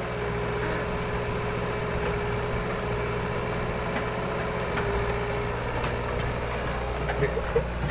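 Hitachi excavator's diesel engine running steadily at an even, unchanging pitch.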